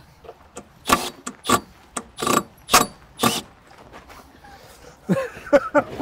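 Milwaukee Fuel cordless driver sinking screws into a wooden crate in short trigger bursts, about five in quick succession.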